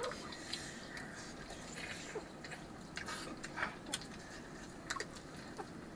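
People eating rice with gravy: chewing with scattered light clicks.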